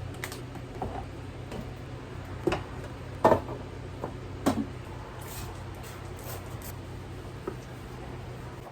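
A handful of light knocks and clunks, like containers and shelf parts being handled and set down, the loudest about three and four and a half seconds in, over a steady low hum.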